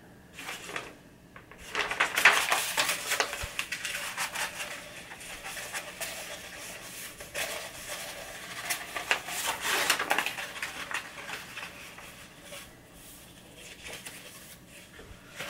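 A paper map and its small cardboard box being handled: irregular rustling and crinkling of paper, loudest about two seconds in and easing off near the end.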